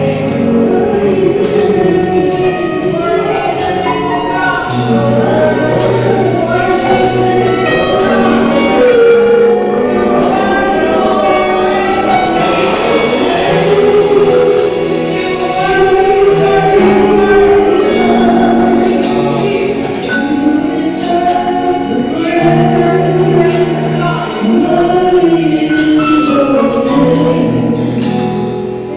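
Gospel choir singing with a backing band: held bass notes and drum hits under the voices.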